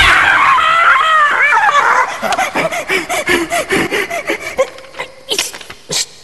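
A rapid run of short, dog-like yelping cries, loud at first and fading away over a few seconds, followed by two sharp clicks near the end.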